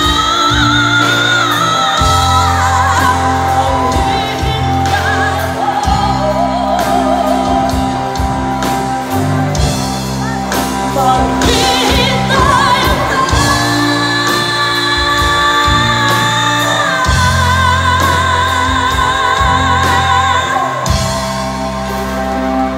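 A live pop-rock band playing with amplified female lead vocals. The singers hold long notes with a wide vibrato over electric guitar, bass, keyboards and drums, with a steady bass line and cymbal crashes throughout.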